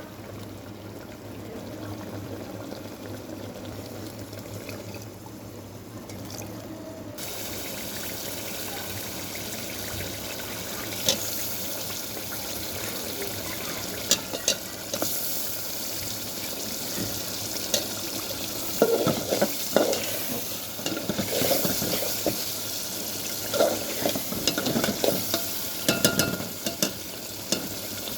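Food frying in a pan, its sizzle growing suddenly louder about seven seconds in. A utensil knocks and scrapes against the pan in irregular clusters through the second half as the food is stirred.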